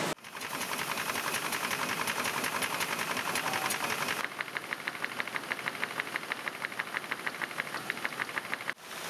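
Paper-handling machinery, a folding machine feeding a palamides gamma automatic delivery, running with a rapid, even clacking as printed sheets pass through. About four seconds in it cuts to a second, slightly quieter stretch of the same regular clacking, which breaks off just before the end.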